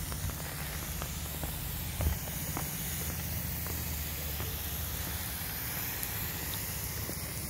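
Pop-up lawn spray sprinkler heads running, a steady hiss of water spray, with a small knock about two seconds in.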